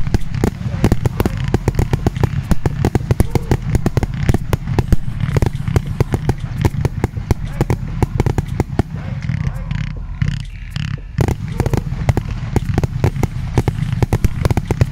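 Consumer firework battery firing a rapid, irregular string of bangs and crackles, several a second without a break, over a low rumble.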